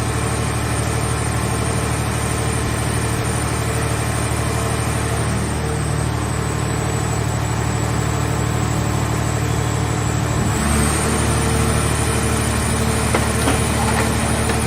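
Scrap car baler's engine and hydraulic power unit running steadily, its note shifting about ten seconds in. A few sharp cracks come near the end.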